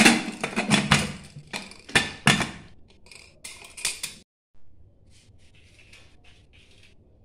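Hawkins pressure cooker lid clattering and clanking against the pot's metal rim as it is fitted and locked shut: a rapid run of sharp metal knocks that fades into softer clicks. After an abrupt break near the middle, only a faint kitchen hum with a few light ticks remains.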